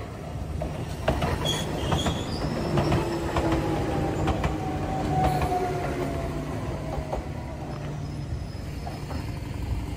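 Enoden (Enoshima Electric Railway) train passing close by: its wheels click over the rail joints, with a whine that falls slowly in pitch as it goes by, over a steady low rumble.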